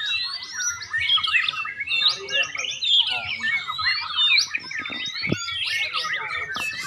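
White-rumped shamas (murai batu) singing in contest, several overlapping at once: fast whistled phrases, rising and falling notes and trills.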